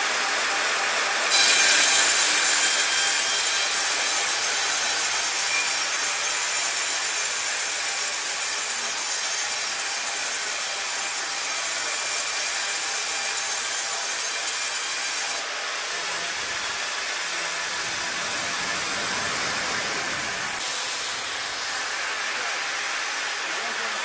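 Bongioanni 1300 band sawmill blade cutting lengthwise through a squared timber beam fed on the log carriage: a loud, steady sawing noise that starts abruptly about a second in and drops away about fifteen seconds in as the cut ends. After that the saw runs on more quietly while the carriage moves the beam back, with a low rumble for a few seconds.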